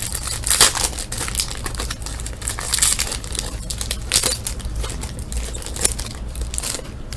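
Wrapper of a trading-card pack crinkling and tearing as it is opened and handled, in irregular crackly bursts. A steady low hum runs underneath.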